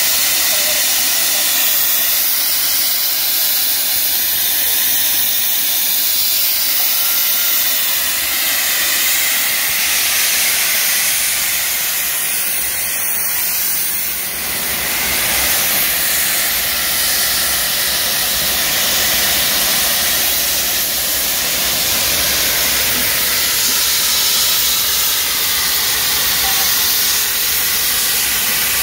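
LMS Fowler 3F 'Jinty' 0-6-0T tank locomotive blowing off steam at its safety valves: a loud, steady hiss, a sign that the boiler is at full working pressure.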